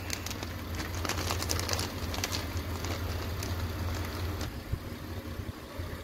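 A car engine idling steadily as a low hum, with plastic rustling and light clicks over it in the first couple of seconds.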